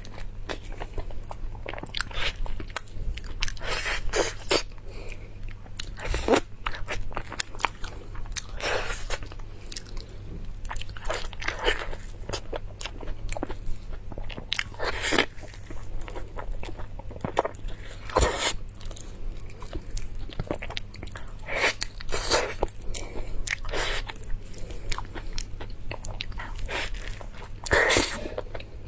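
Close-miked eating of soft Musang King durian flesh: irregular wet mouth smacks and clicks as it is bitten and chewed.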